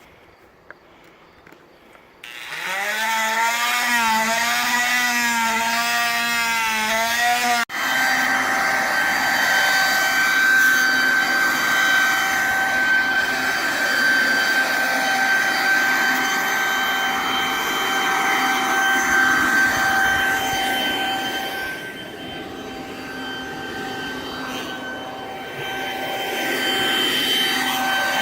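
A power tool runs loudly and steadily after a couple of seconds of quiet. Its whine wavers in pitch at first, breaks off abruptly, then carries on at a steady pitch with a rasping noise, dipping somewhat in level later on.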